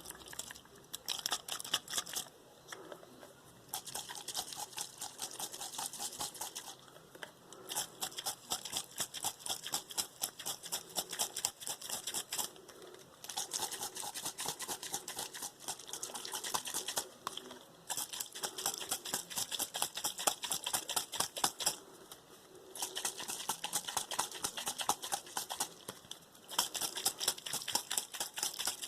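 Rapid tapping on a nearly empty room-fragrance spray bottle. It comes in quick runs of clicks a few seconds long, broken by short pauses.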